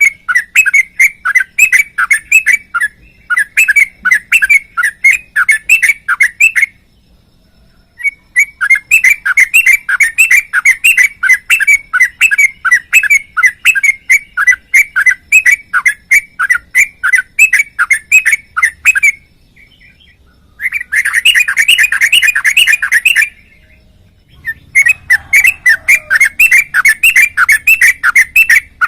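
Sooty-headed bulbul (trucukan) singing a long, rapid run of repeated chattering notes (the 'ropel' song), in four stretches broken by short pauses.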